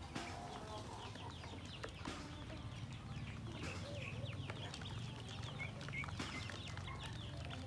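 A bowlful of ducklings peeping, many short high chirps that each fall in pitch, overlapping without a break, over a steady low hum.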